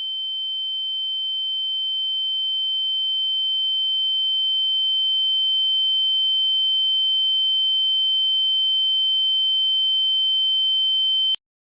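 A steady, high-pitched electronic tone with a fainter lower tone beneath it, growing slowly louder and then cutting off suddenly near the end.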